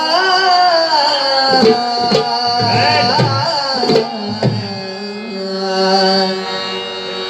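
Marathi bhajan music: a male singer's voice glides on a long held note over a steady sustained instrumental drone. Hand-drum strokes come in a few times in the middle.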